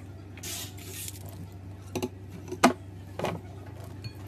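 Metal scissors cutting into a slime-filled rubber balloon stress ball. A soft rustling squish comes first, then three sharp snips about half a second apart, the middle one loudest, and a faint click near the end.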